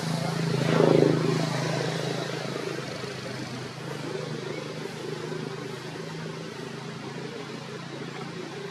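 Motor vehicle engine humming, swelling to its loudest about a second in as it passes, then easing to a steady lower drone.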